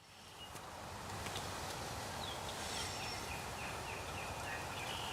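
Turkey yelps: a series of about eight short, evenly spaced notes, stepping slightly down in pitch, starting a little past two seconds in, over steady background noise.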